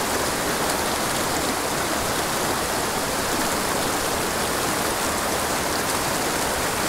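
Small mountain pocket-water creek rushing, a steady even water noise.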